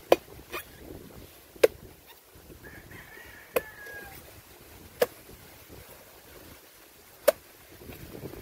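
Machete chopping into the husk of a young green coconut: five sharp strikes, irregularly spaced about one and a half to two seconds apart, with a lighter knock just after the first.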